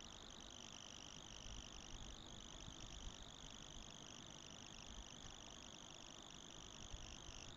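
Near silence: a faint, steady high-pitched hiss of background noise, with a few faint ticks.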